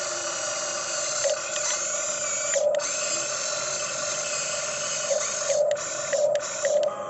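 RC excavator's electric hydraulic pump and motors whining steadily, a drill-like mechanical whine that dips out briefly a little under three seconds in and again near the six-second mark as the controls are let off.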